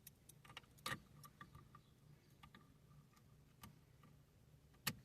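Near silence with a few faint, scattered clicks and taps from a hand tool being fitted to a bolt on a car's steering-column ignition housing. The clearest clicks come about a second in and near the end.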